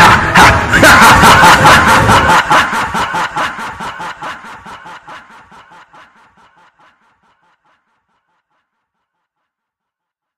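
A rapid, rhythmic laugh, about five pulses a second, fading out steadily and gone about seven seconds in.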